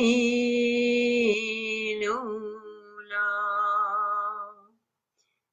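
A woman's solo voice chanting "Lu La" syllables in long, slow held notes. The pitch steps down about a second and a half in, and a new held note starts about three seconds in. She stops shortly before the end.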